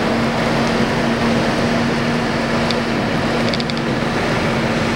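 Heavy rain pouring steadily onto wet pavement and trucks, over the constant low hum of utility bucket trucks' idling diesel engines.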